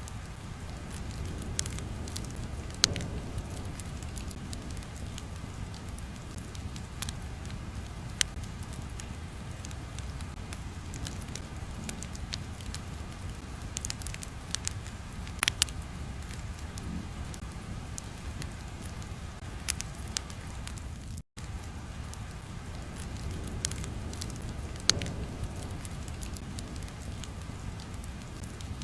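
Crackling fire ambience: a steady low rumble with scattered sharp pops and crackles, cutting out for an instant about 21 seconds in.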